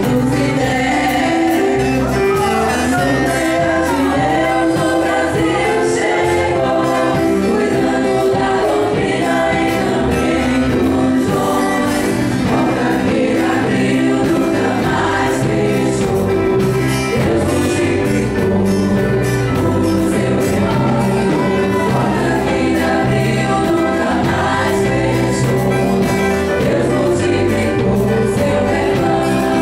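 Gospel music: a choir of voices singing a hymn over a band with a steady drum beat.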